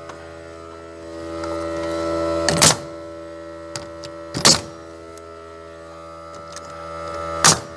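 Nail gun firing three sharp shots about two seconds apart, fastening trim boards, over a steady motor hum that swells before the shots.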